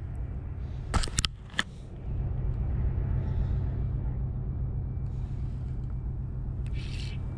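Steady low outdoor rumble, with a quick cluster of three or four sharp clicks about a second in from the Shimano Stradic spinning reel being handled as the retrieve begins.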